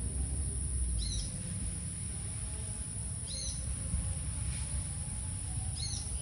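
A bird repeating the same short, high call about every two and a half seconds, three times, over a steady high-pitched hiss and a low rumble.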